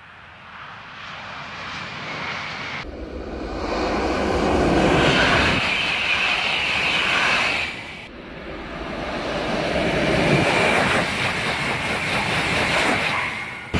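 French TGV high-speed trains passing at speed: a rushing whoosh that builds and fades, heard as a faint, distant approach and then two close pass-bys, each cut off abruptly about 3 and 8 seconds in.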